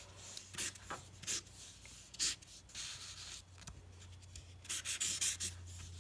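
A felt-tip Sharpie marker scratching across paper in short strokes as boxes are drawn around written words, with a quicker run of strokes about five seconds in.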